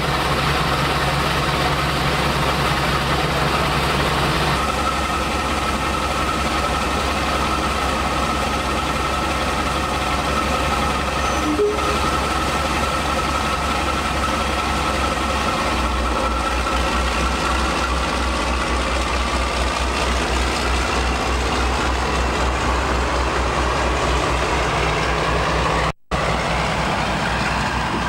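Class 52 'Western' diesel-hydraulic locomotive D1041 'Western Prince', its twin Maybach engines running steadily with a high whistle over the engine note. About halfway through, the low engine beat turns to a pulsing throb.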